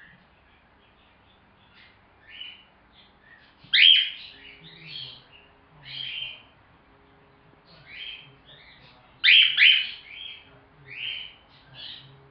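A young cockatiel chirping: a string of short, high chirps about one a second, with the loudest near four seconds in and a close pair of loud chirps around nine seconds in.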